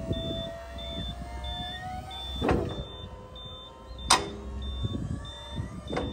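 Hydraulic folding mechanism of a Kobashi TX320 Cyber Harrow (rotary harrow) moving a wing, with a low motor hum and a slowly rising whine. A high beep repeats about every two-thirds of a second throughout. Sharp metal clacks come about 2.5 s and 4 s in.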